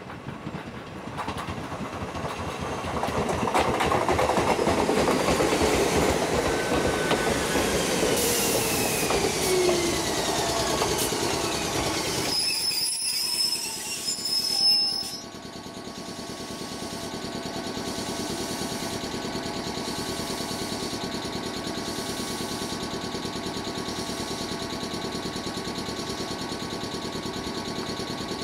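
Ichibata 2100 series electric train arriving and braking to a stop, its motor and gear whine falling steadily in pitch, with a short high brake squeal just as it halts about halfway through. It then stands with a steady electrical hum from its underfloor equipment.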